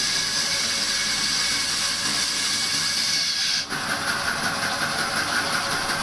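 Large band saw cutting through a stack of corrugated cellulose cooler pads: a loud, steady hissing rasp. A little past halfway it dips briefly and changes abruptly to a lower hiss.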